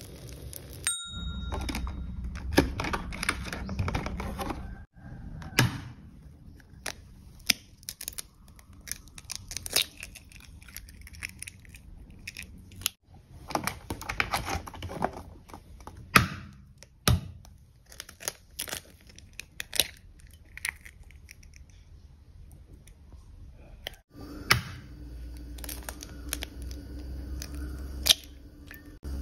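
Eggs being cracked on a metal bowl and dropped in, with the clear plastic egg tray crinkling as eggs are taken out: a series of sharp cracks and taps among rustling.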